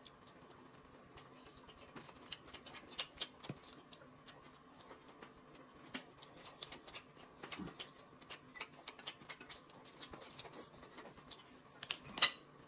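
Faint eating sounds at a table: chewing and scattered small clicks of chopsticks against plates and bowls, with one louder click near the end.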